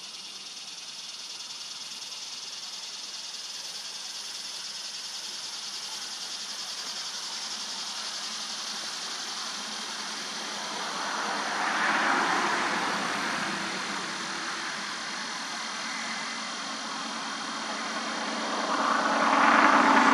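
Steady outdoor hiss with a motor vehicle's engine growing louder and fading twice, about halfway through and again near the end.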